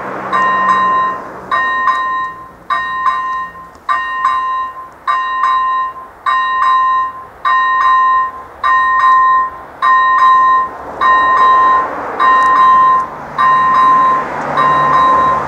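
Level-crossing warning bell of an AŽD 97 signal, the first-generation electronic type, ringing a steady ding about once every 1.2 seconds. It warns road users that a train is approaching.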